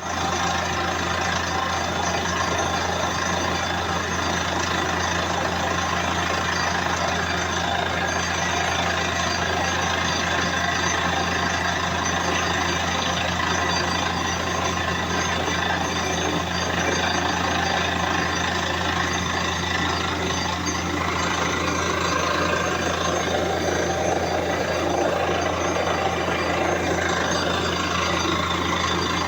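A borewell drilling rig's high-speed air compressor and engine running steadily: a continuous loud rush of noise over a low hum, with some sliding tones in the last several seconds.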